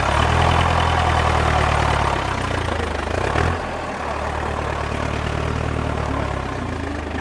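Tractor engine idling steadily with a low, even note; the note breaks off briefly about three and a half seconds in, then resumes.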